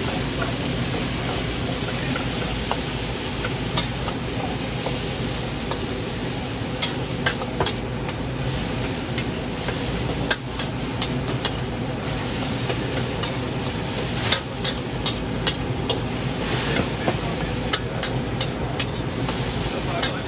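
Stir-frying in a wok: food sizzling over a steady hiss, with a metal spatula striking the wok again and again. The strikes are sparse at first and come more often from about a third of the way in.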